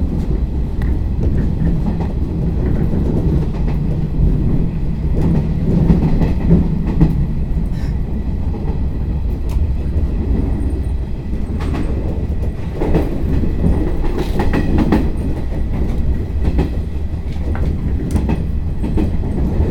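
Electric commuter train running, heard from inside the passenger car: a steady low rumble with the wheels clicking over rail joints and pointwork, the clicks coming more thickly in the second half.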